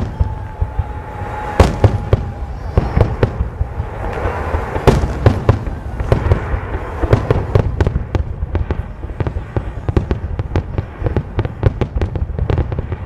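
Fireworks display: a rapid string of bangs and crackling bursts, with two loud booms about one and a half and five seconds in, and a dense continuous crackle through the second half. A thin steady whistle sounds for the first two seconds or so.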